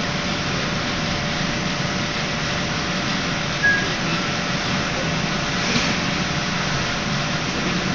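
Steady hum and hiss of ventilation or air-conditioning noise, with one soft knock near the middle.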